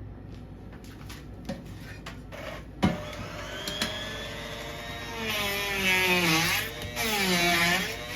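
Electric blender: a sharp click about three seconds in, then the motor whines in repeated pulses of about a second each, its pitch sagging and recovering in each pulse as it loads up on a chunky marinade of chopped peppers, onions and herbs.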